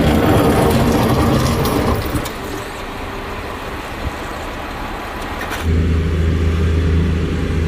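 Road vehicle noise: dense, loud traffic and road noise at first, easing after about two seconds. About five and a half seconds in it changes abruptly to a steady low engine drone.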